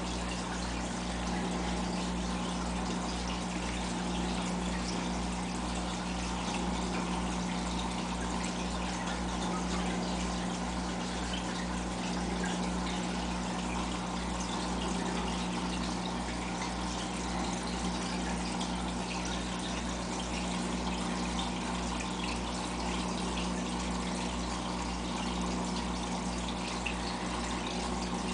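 Aquarium filter running: a steady trickle and splash of water over a constant low hum from the pump.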